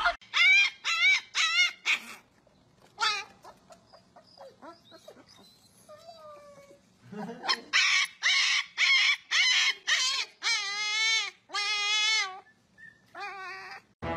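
Husky puppy yelping and howling: a string of short, high calls that rise and fall, ending in two longer, wavering howls.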